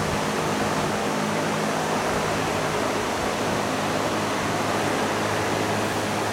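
Steady rushing air from a large fan running, with a low, even hum under it.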